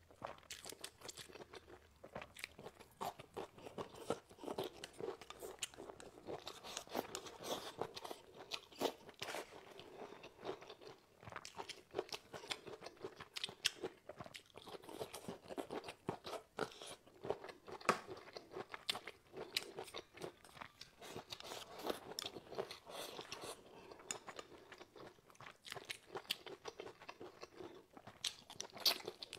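A person chewing and crunching food close to a clip-on microphone: a dense, unbroken run of small crunches and mouth clicks.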